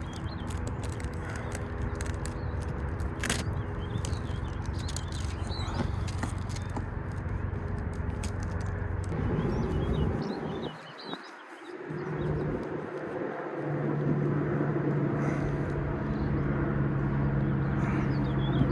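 Low steady engine hum of motor vehicles. It changes about ten seconds in, drops away briefly, then a different steady hum takes over; faint bird chirps come through in the middle.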